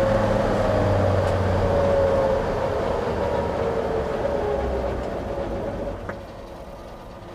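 1949 GMC half-ton pickup's 228 cubic-inch inline six and drivetrain running in second gear, heard from inside the cab, with a whine that falls steadily in pitch as the truck slows. The sound drops off about six seconds in.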